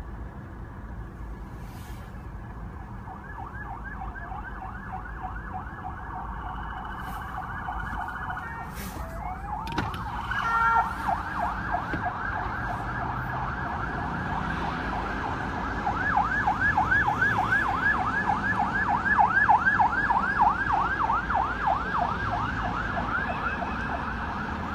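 Police motorcade sirens in a fast yelp, pitch sweeping up over and over, faint at first and growing louder as the convoy passes, over the rumble of traffic.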